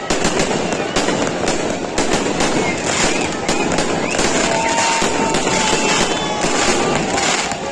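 Fireworks and firecrackers going off in quick succession: many sharp bangs, several a second, over a continuous crackling din, with faint whistling glides.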